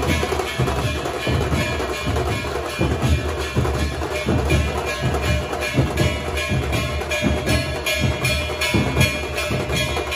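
Dhol tasha ensemble playing live: many large barrel-shaped dhol drums beaten with sticks in a fast, steady rhythm, with the sharp, rapid strokes of small tasha drums on top.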